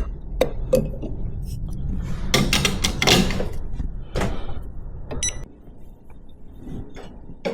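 Clicks and knocks of espresso gear being handled, a portafilter and puck screen being set down and fitted, over a low hum that stops about five and a half seconds in.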